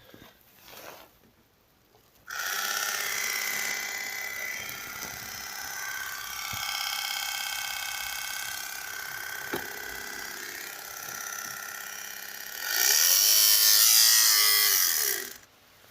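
Honda CR-V cabin heater blower fan switched on and running with a steady whine of several tones. Near the end it goes to a louder, rushier higher speed, then cuts off suddenly.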